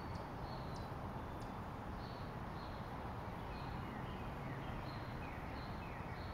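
Outdoor ambience with small birds chirping: short high notes repeating about once a second, a few quick falling trills near the end, over a steady hiss and low rumble.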